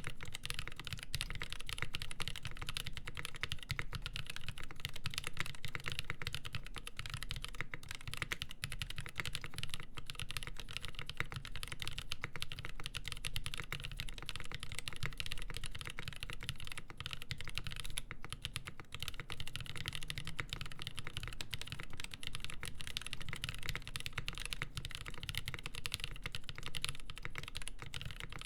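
Continuous fast typing on a VIA mechanical keyboard with lubed Nolive Cream switches, a full polycarbonate plate and GMK Olivia keycaps: a dense, steady stream of keystrokes.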